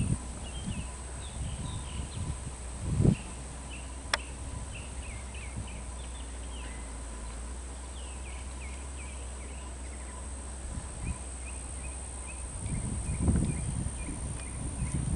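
Outdoor ambience of small birds chirping in quick, repeated short calls, with a steady high thin whine behind them. A few low thumps and rumbles come and go, one about three seconds in and more near the end.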